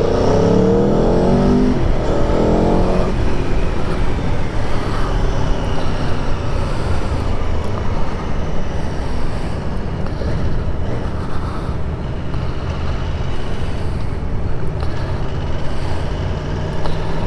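Aprilia Tuono V4 1100's V4 engine pulling hard as the bike accelerates, rising in pitch twice in the first three seconds, then running steadily under a constant rushing noise; it starts to rise again near the end.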